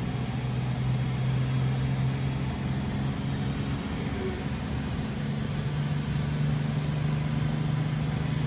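Loaded lorry's diesel engine running steadily inside the cab as it drives along the highway. Its note steps up slightly in pitch about five seconds in.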